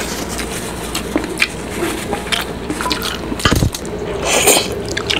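Close-up eating sounds of boiled pork eaten by hand: wet chewing, lip smacks and finger-sucking clicks. There is a low thump about three and a half seconds in, and a brief rushing noise just after four seconds.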